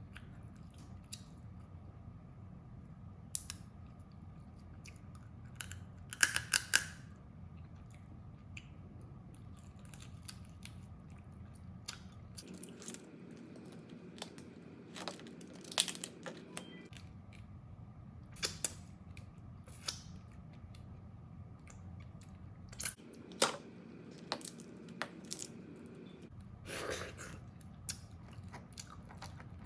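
Crab being eaten close to the microphone: shells cracking and crunching, with chewing, in scattered sharp snaps over a low steady hum. There is a quick run of snaps about six seconds in.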